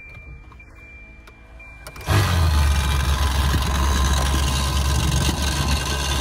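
Volvo 240 heater blower motor switched on at its highest setting about two seconds in, running pretty loud with a steady low hum and rushing air. The owner puts the noise down to something rattling or rubbing against the fan.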